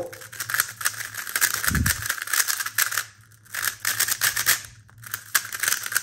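MoYu Super RS3M V2 standard 3x3 speedcube being turned fast by hand, its plastic layers clicking in a rapid, continuous clatter. The turning pauses briefly about three seconds in and again near five seconds, and there is one soft thump about two seconds in.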